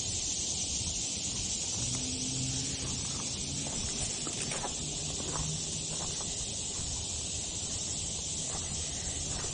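Steady high-pitched chorus of insects, an even hiss that holds throughout, with a few soft rustles midway.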